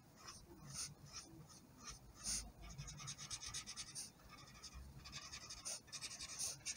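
Marker tip scratching faintly across paper in quick back-and-forth colouring strokes, with quicker runs of strokes in the middle and near the end.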